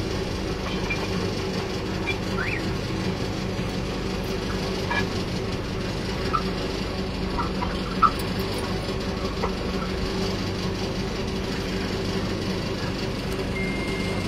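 Truck-mounted water well drilling rig running steadily while drilling: an even mechanical hum that holds a constant pitch, with one sharp knock a little past halfway.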